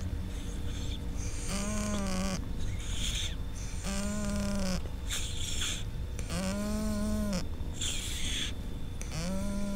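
A cat breathing noisily, like snoring: four low, snore-like tones, each followed by a short hiss, about every two and a half seconds.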